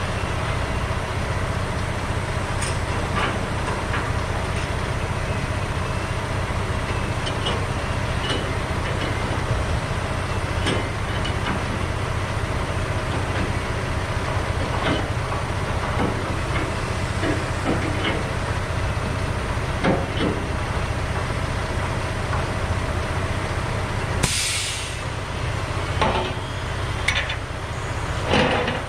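Logging truck running down the road, heard from inside the cab: a steady low drone with scattered rattles and clicks. A short hiss comes about 24 seconds in, and another rattle near the end.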